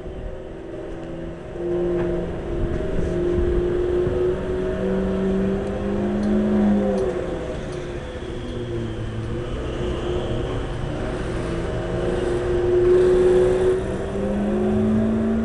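An engine running steadily over a low rumble, its pitch dropping about halfway through and climbing again near the end.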